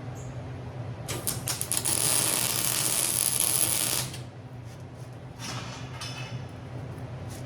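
A short run of arc welding, crackling and sputtering as the arc starts and then hissing steadily for about three seconds before it cuts off. A fainter second bead follows, all over a steady electrical hum.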